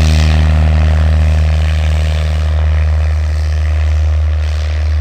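Cessna 172S Skyhawk SP's four-cylinder Lycoming IO-360 engine and propeller running with a steady low drone as the plane taxis.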